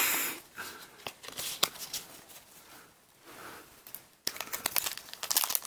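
A foil booster-pack wrapper crinkling as trading cards are handled. There is a short rustle at the start and a quieter stretch in the middle, then denser crinkling and clicking from about four seconds in.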